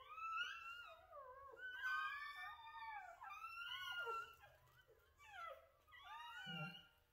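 Newborn Rottweiler puppies whining and squealing, many high-pitched cries sliding up and down and overlapping, while they are being put to the mother's teats to latch on and nurse.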